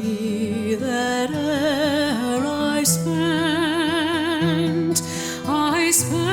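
Slow background music: a melody of long, wavering held notes over a sustained low bass line.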